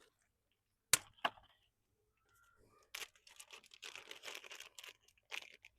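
Two sharp clicks about a second in, then a couple of seconds of rustling and light clicking as a window screen frame kit's packaging and parts are handled.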